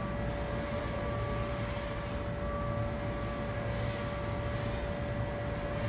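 Sharper Image DX-2 toy quadcopter's small motors and propellers whirring in flight, a steady high whine over a low rumble.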